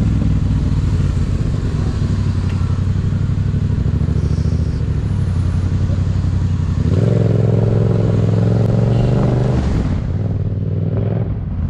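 Yamaha MT-07's parallel-twin engine running steadily while riding in slow city traffic. About seven seconds in the engine note grows fuller for a few seconds. Near the end it gives way to a duller, muffled street sound.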